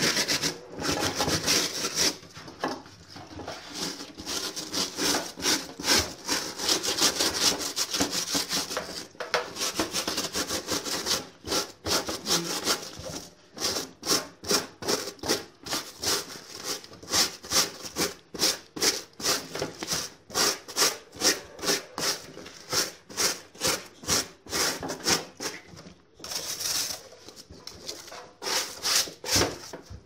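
A plastic scrub brush scrubbing a wet, soapy cloth vacuum-cleaner dust bag with quick, regular back-and-forth strokes, a few a second, broken by short pauses.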